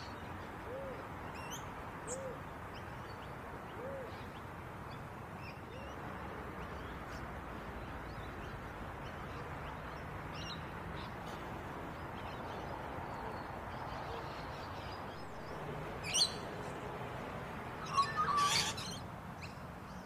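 Birds calling in a flowering eucalyptus: a low hoot-like call repeats every second or so for the first few seconds, with scattered short high chirps throughout. Near the end come two shrill screeches, the loudest sounds, typical of lorikeets feeding in the tree.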